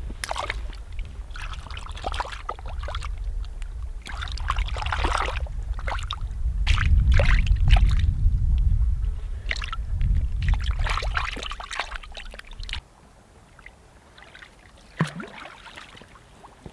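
A gutted lake trout being swished and rinsed by hand in shallow lake water, with splashing and trickling over a heavy low rumble. The rumble cuts off sharply about two-thirds of the way through, and it is quieter after that.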